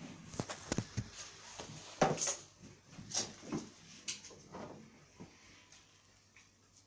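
Scattered thumps, scuffs and clicks of a cat moving around, its paws on a parquet floor and a bed, with the sharpest knocks about two and three seconds in and softer movement near the end.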